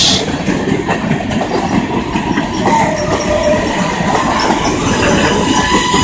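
Freight train cars rolling past close by, with a steady rumble and clatter of wheels on the rails. A thin, steady high tone comes in about five seconds in.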